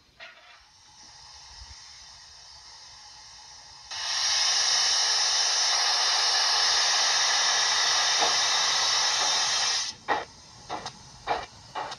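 Steam-locomotive sound played by a model's ESU LokSound V4 Micro DCC sound decoder through a small speaker. A faint hiss gives way, about four seconds in, to a loud steady steam hiss that cuts off suddenly near ten seconds; exhaust chuffs then begin at about two a second as the loco pulls away. The decoder is loaded with a 64XX pannier tank sound file, which is the wrong one for this locomotive.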